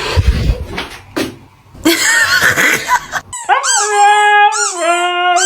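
A dog howling in several drawn-out calls in the second half, each starting with a quick rise and fall in pitch before holding steady. Before that comes noisy rustling with short higher cries.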